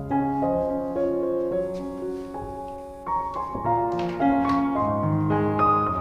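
Background piano music, a gentle melody of sustained notes.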